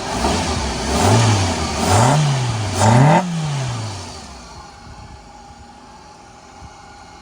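Hyundai Santro Xing's petrol engine revved three times in quick blips, each rising and falling, then settling back to a steady idle. It revs up cleanly after its throttle body was cleaned and its ignition coil wiring repaired, which the owner takes for full power with no misfire left.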